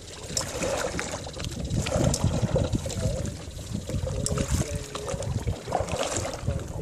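Kayak paddle strokes: water splashing and trickling off the paddle blades as they dip and lift, over an uneven low rumble.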